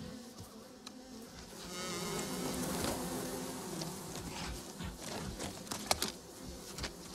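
Insects buzzing, swelling in the middle, with a few sharp cracks and snaps of rotten wood about six seconds in as a brown bear claws a log apart.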